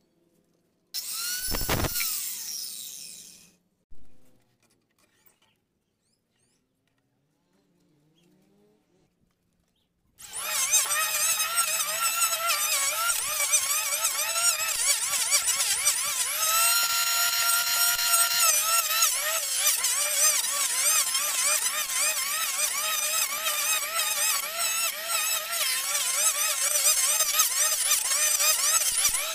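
A short burst of machine noise about a second in, then, from about ten seconds in, a corded electric hand planer runs along a wooden slab, a loud, steady, high whine whose pitch wavers as the blades bite into the wood.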